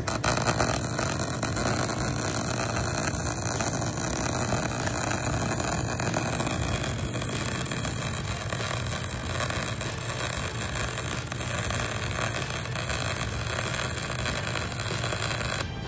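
MIG welding arc running steadily as a bead is laid, shielded by good 75/25 argon-CO2 gas. It cuts off shortly before the end.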